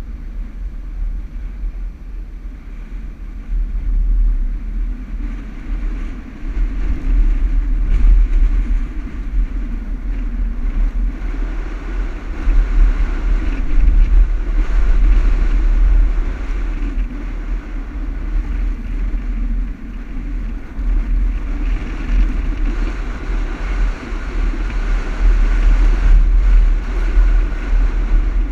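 Toyota Land Cruiser driving over desert sand dunes: a continuous low rumble of engine and tyres that rises and falls in level as it drives on.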